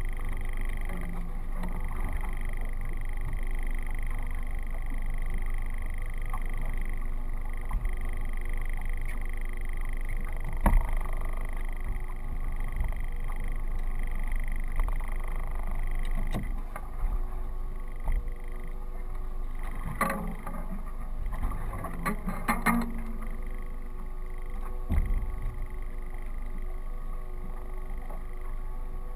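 Steady low rumble and hiss aboard a small fishing boat, with a few sharp knocks of gear and hull, a cluster of them about twenty seconds in.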